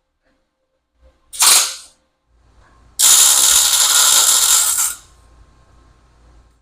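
Arc welding steel foot pads onto the stand's legs: a short weld burst about a second in, then a steady weld lasting about two seconds that stops abruptly.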